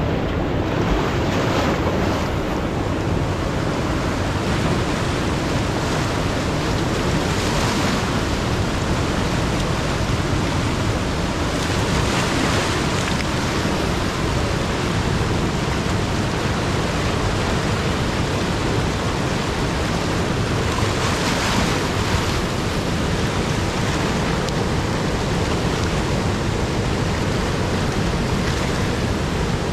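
Flowing river water rushing steadily, swelling briefly a few times.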